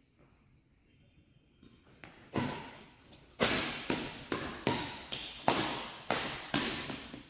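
Badminton rackets smacking the shuttlecock in a fast rally: after a short quiet, a quick run of sharp hits, about two or three a second, each echoing in a large hall.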